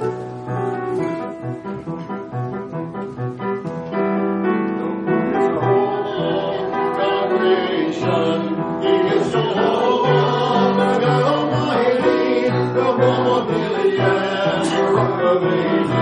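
A church congregation singing a worship song to piano and guitar accompaniment; the instrumental opening gives way to the voices coming in a few seconds in.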